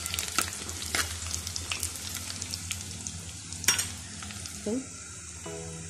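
Sliced shallots and dried red chillies sizzling in hot coconut oil in a clay pot: a steady hiss with frequent crackles and pops of spitting oil, as a spoon stirs and scrapes through them, with one sharper click a little past the middle.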